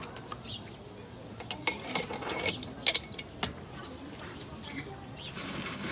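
Metal teapots and tea glasses clinking and knocking as they are handled, a few sharp clinks bunched in the middle seconds.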